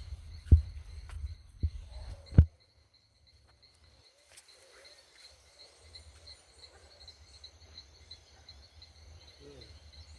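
Insects, crickets, chirping in a steady high pulsing trill. For the first two and a half seconds there is low rumbling with a few loud thumps, which cuts off suddenly.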